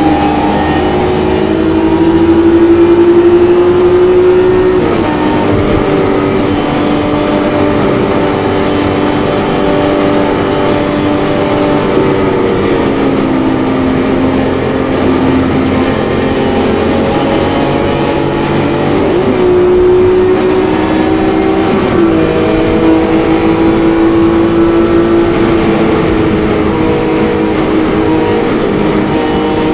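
Supercharged BMW E46 M3's 3.2-litre straight-six pulling hard at high revs, about 5,500 to 6,400 rpm, heard from inside the cabin. Its pitch climbs slowly through each gear and drops sharply at the gear changes, the first about five seconds in.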